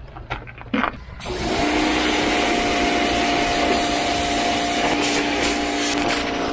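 RYOBI pressure washer starting up about a second in after a few small clicks. It then runs steadily, its motor humming under the hiss of the high-pressure jet spraying a boat's transom and outboard bracket.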